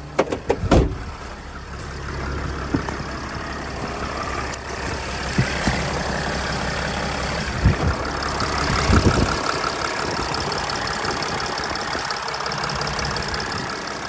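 A 2007 Sprinter's freshly installed 3.0 L V6 diesel idling steadily on its own, with a few sharp knocks in the first second.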